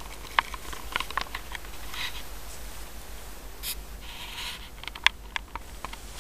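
Small wet clicks and smacks from a litter of 15-day-old Siamese kittens suckling, coming in scattered little clusters, with brief soft rustles as they shift against their mother and the blanket.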